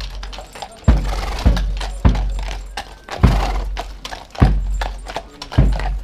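Marching drum beats: a bass drum strikes low and loud, roughly once a second, keeping the march step. Horse hooves clip-clop on asphalt as a two-horse carriage passes close by.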